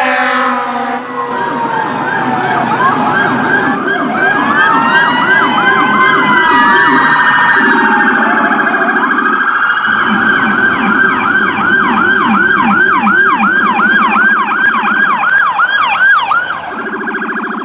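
150 W electronic vehicle siren (150HX) sounding through its speaker and running through tones. In the first half slow rising-and-falling wails overlap a fast yelp, then from about ten seconds in a steady fast yelp of about three sweeps a second.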